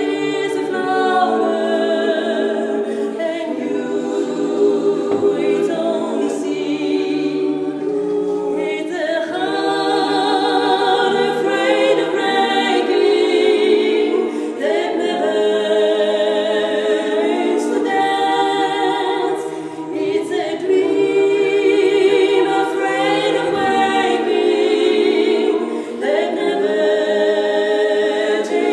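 Small women's a cappella vocal ensemble singing in harmony, several voices holding long chords without instruments, with short breaks for breath twice in the second half.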